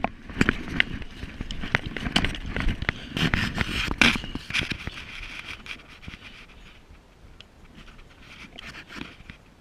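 A competitor panting hard from exertion, while rifle, sling and gear scrape and knock against asphalt roof shingles and a ladder. The knocks and breathing are busiest in the first four seconds or so, then ease off.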